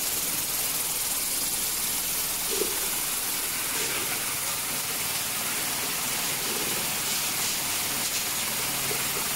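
Vibratory bowl polishing machine running, its small metal ball media churning with aluminum parts and polishing agent in a steady hiss.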